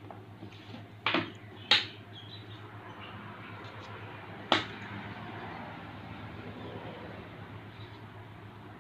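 Three short, sharp knocks over a steady low hum: one about a second in, a louder one just after, and a third near the middle.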